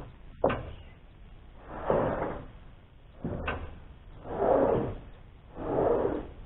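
Lumber being handled: two sharp wooden knocks and several short scraping slides as boards are moved.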